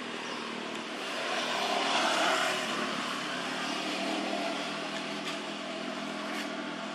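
A steady engine drone, swelling a little about two seconds in and then holding level.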